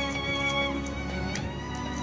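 Background music with held melodic notes.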